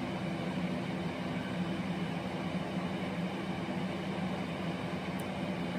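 Steady low hum of room background noise, a constant drone with no breaks or changes.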